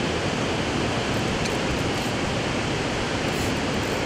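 Steady, even rushing noise at a constant level, with no distinct knocks or voices.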